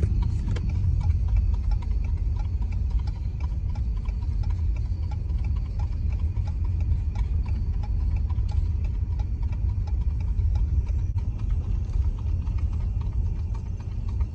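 Rapid, evenly spaced hoofbeats of a gaited horse racking along the road, over the steady low rumble of the following car's engine and tyres.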